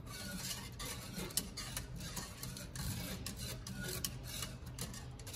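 Wire whisk stirring thickening cook-and-serve pudding in a large metal pot, with an irregular scraping and clicking of the wires against the pot's sides and bottom.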